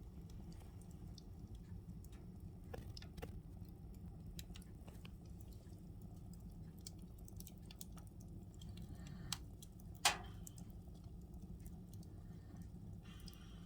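Wood fire crackling: scattered small pops over a low steady rumble, with one loud pop about ten seconds in.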